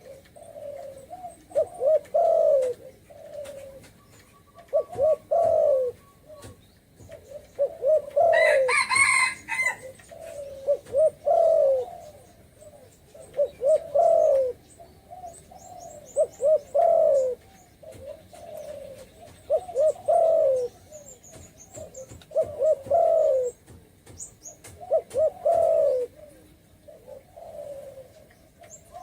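Spotted dove calling: a repeated low, rolling coo phrase, one about every three seconds. A brief higher-pitched call from another bird cuts in about nine seconds in.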